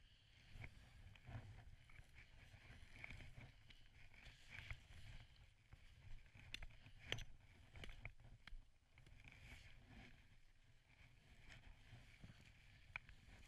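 Faint, irregular crunches and rustles of someone moving through snow, over a low rumble.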